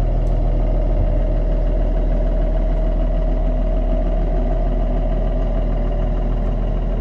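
Diesel engine of a 2009 Doosan DX140 excavator running steadily, with a steady higher tone over its low drone, during a light test run after its hydraulic pump bearing was replaced.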